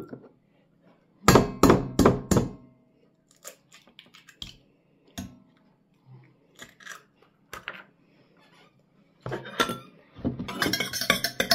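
Eggs being cracked into a steel pot: four sharp knocks of shell about a second in, then small clicks and taps as the shells are pulled apart, and another few knocks near the end. Background music comes in just before the end.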